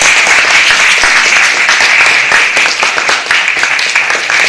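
Loud applause from a roomful of people, many hands clapping densely and steadily.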